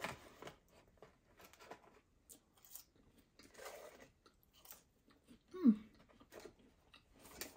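Cardboard takeaway fries box and packaging being handled, with scattered light rustles, scrapes and taps. A little past halfway a brief sound that falls in pitch stands out as the loudest.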